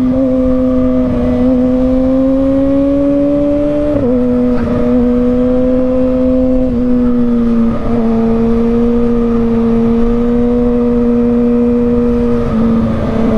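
Kawasaki ZX-6R's inline-four engine running under way at steady, fairly high revs. Its pitch creeps up for a few seconds, then drops slightly in small steps a few times.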